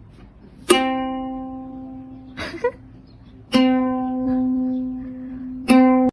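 A plucked string, like a guitar or ukulele string, sounding the same low note three times, each struck suddenly and left to ring and fade. A brief, softer sound comes between the first and second notes.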